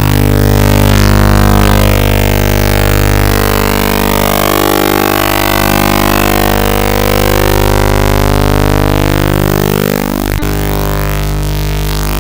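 Loud droning electronic music: a dense stack of held tones with slowly sweeping, warbling overtones, broken by a brief dip and a click about ten seconds in.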